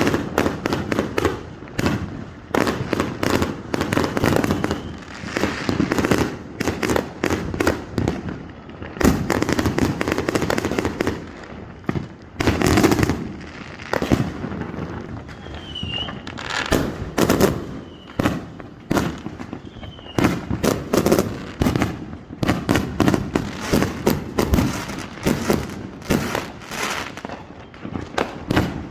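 Fireworks going off: an almost unbroken string of sharp bangs and crackles in quick, irregular succession, with a few louder booms standing out among them.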